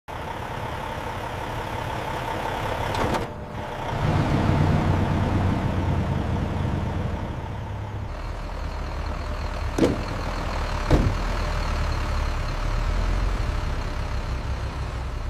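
Heavy truck engine running as the truck pulls away, a low rumble under road and ambient noise. It dips briefly about three seconds in, then comes back louder, with two sharp knocks a second apart near the middle.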